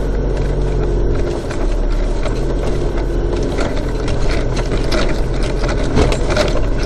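Engine of a four-wheel-drive vehicle running at low speed, heard from inside the cabin as it crawls up a rutted dirt track, with frequent knocks and rattles that grow busier in the second half.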